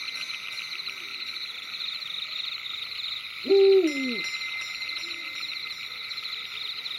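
An owl hoots once, about three and a half seconds in: a short call that slides up and then falls, with a faint echo after it. Under it runs a steady, high, fast-pulsing night chorus.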